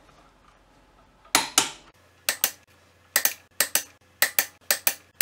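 Click-type torque wrench set to 68 ft-lb, breaking over in sharp double clicks again and again as it is pulled on the bolts holding the ring gear and signal plate to a Nissan VK45DE crankshaft. Each click marks the set torque reached. The clicks start about a second in and come about two pairs a second.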